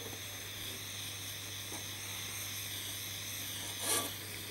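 Small jeweller's soldering torch flame hissing steadily while heating the work on a charcoal block, with a low steady hum underneath. A short, louder rush of noise comes about four seconds in.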